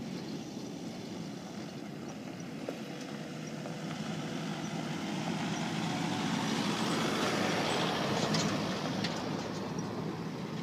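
A four-wheel-drive ute towing a camper trailer driving past on a sandy track: engine and tyre noise swelling as it comes close, loudest about eight seconds in, then easing off.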